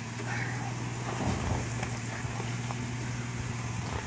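Jeep Liberty KJ engine running steadily at low revs with an even hum, the SUV creeping through a rocky creek.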